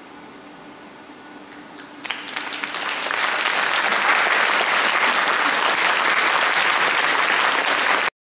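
Audience applauding: about two seconds of quiet hall, then clapping breaks out, swells over the next two seconds and holds steady until it cuts off suddenly near the end.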